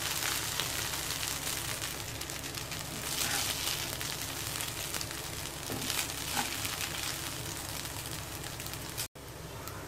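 Tamarind rice crackling and sizzling faintly in a still-hot nonstick kadai after the flame is turned off, while a metal spatula stirs and scoops it with a few light scrapes against the pan. The sound cuts out for an instant near the end.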